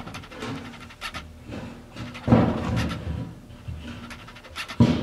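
An aluminium transmission case being shifted and propped on a wooden 2x4 on a metal workbench: a few knocks and scrapes, the loudest about two seconds in, and a sharp knock near the end.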